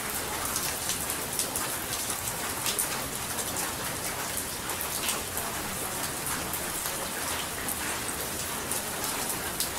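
Steady rain, with many small drops striking a surface.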